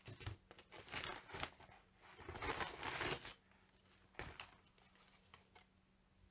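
Packaging being handled and rustled by hand, in several short bursts over the first three seconds and once more a little after four seconds.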